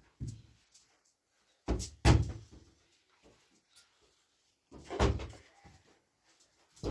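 Heavy knocks and bumps of objects being handled: a short one at the start, a double knock about two seconds in, and another about five seconds in, with quiet between.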